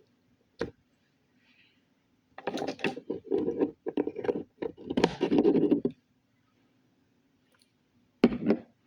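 Slime being squished and worked in the hands, giving a run of crackling, popping clicks. There is one sharp click under a second in, a dense stretch of crackles in the middle, and another short burst near the end.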